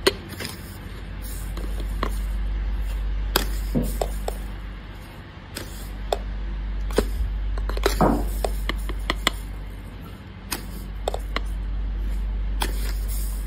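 Light clicks and knocks of kitchen handling over a low hum that swells and fades every few seconds, with a fuller knock about eight seconds in.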